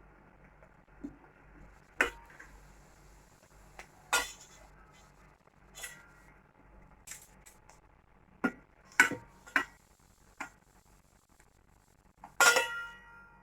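Metal utensil knocking against a pan, about nine separate clinks with a short metallic ring, the loudest about two-thirds through and near the end, as fried potato snacks are lifted out of the hot oil.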